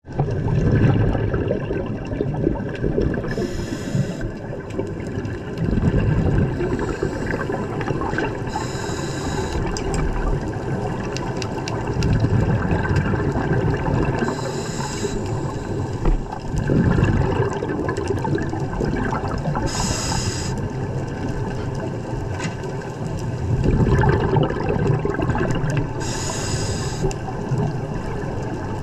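Scuba diver breathing through a regulator underwater: a short hissing inhalation alternating with a longer rumble of exhaled bubbles, repeating about every five to six seconds, five breaths in all.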